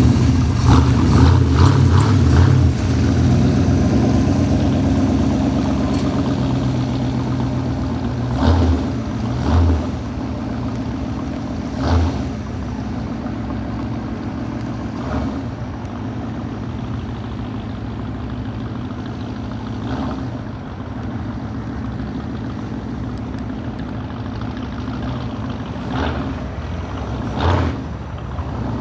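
Ratrod dually's 350 small-block V8 revving hard for the first few seconds of a burnout, then settling to a steady lope broken by several short throttle blips.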